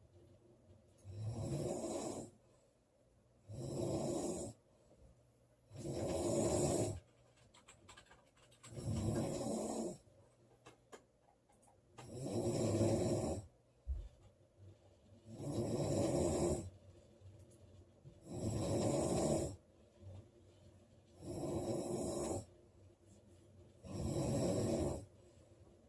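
A woman snoring loudly in her sleep, a regular snore about every three seconds, each lasting a second or so.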